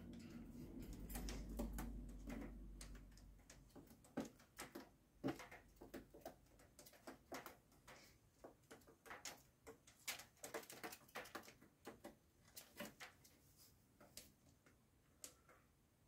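Faint, irregular clicking and tapping as cockatiels' claws and beaks grip the wire cage and the cardboard nest box, with a low rumble over the first three seconds.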